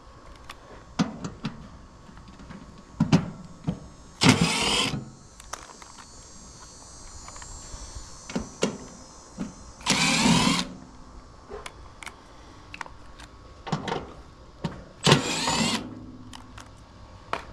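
A Milwaukee M12 cordless impact driver runs in three short bursts, backing out the cover screws of a heat-pump condenser, with small clicks and knocks of handling between the bursts.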